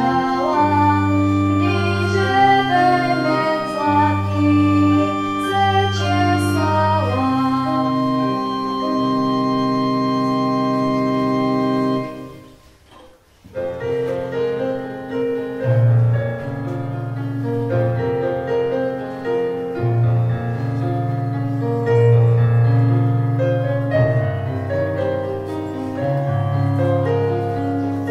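A girl's solo singing over an electronic keyboard accompaniment with an organ-like sound. The song ends on a long held chord that cuts off about twelve seconds in. After a short pause the keyboard plays on alone, with a steady bass line.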